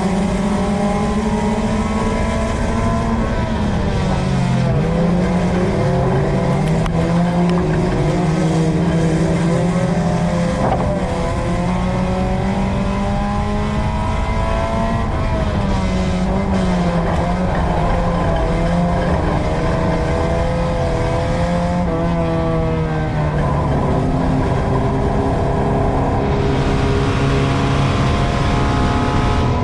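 USRA Tuner dirt track race car engine heard from inside the car, running hard under load. The engine note drops as the driver lifts for each corner and climbs again down the straight, about every six seconds, over steady road and tyre noise.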